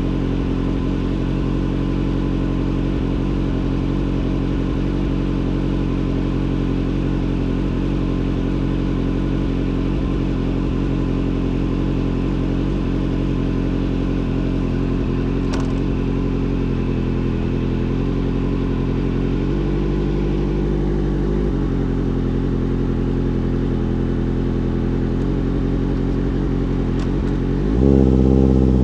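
Motorcycle engine running at a steady, unchanging speed, then revving up near the end.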